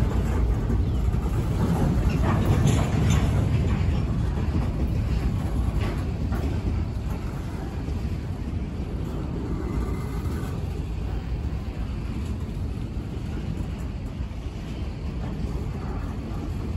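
Freight train's covered hopper cars rolling past: a steady low rumble of steel wheels on rail, with a few clanks in the first several seconds.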